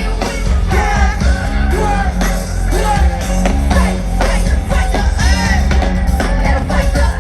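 Live hip-hop performance with a heavy, pulsing bass beat and vocals over it.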